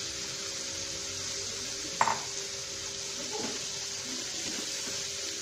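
A wooden spatula stirring soaked rice into fried potatoes and peas in a nonstick frying pan, over a steady soft sizzle of hot oil. The spatula knocks sharply against the pan once about two seconds in, followed by a few scrapes.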